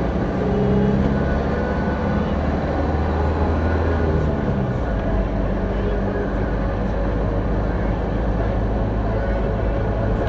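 Truck engine running and tyre noise while driving, heard from inside the cab. The engine note changes about four and a half seconds in.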